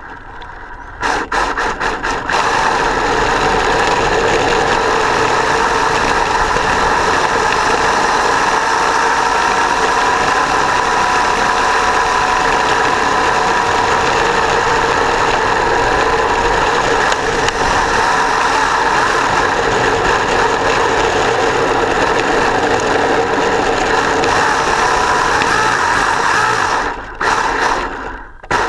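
Traxxas Velineon brushless motor and drivetrain of an RC drift car running under throttle, a steady whine whose pitch drifts a little, over the noise of its gears and tyres on rough asphalt, heard from a camera mounted on the car. It starts in short bursts about a second in and breaks into short bursts again near the end.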